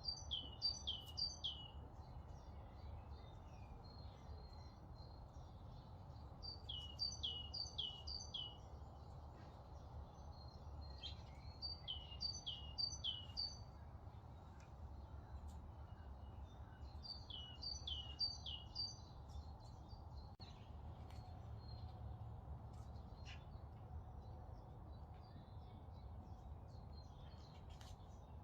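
A songbird singing a short phrase of three or four quick falling notes, repeated four times about every five seconds, over a faint steady low rumble.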